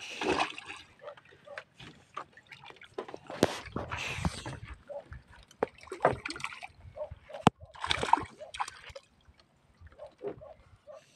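Water splashing and sloshing in irregular bursts as a fisherman works his hand and line over the side of a small outrigger boat, with one sharp knock about seven and a half seconds in.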